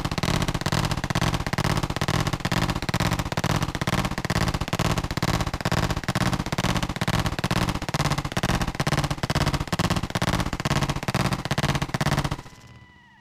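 Two full-auto AK pistols in 7.62×39, mounted side by side and fired together, in one long sustained burst at a fast rate of fire. The firing cuts off suddenly about twelve seconds in.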